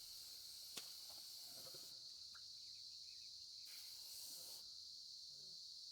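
Faint, steady high-pitched insect chirring, typical of crickets, with one small click about a second in.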